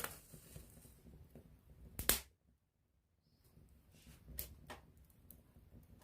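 Wood campfire crackling close up, with irregular small snaps and one loud pop about two seconds in. A brief dead silence follows the pop before the crackling picks up again.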